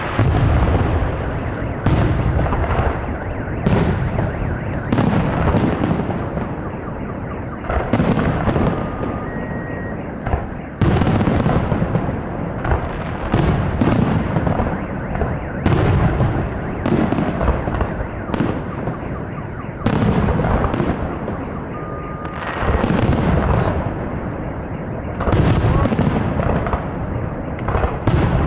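Fireworks display: aerial shells bursting one after another, a boom every second or two, each trailing off in a low rumble.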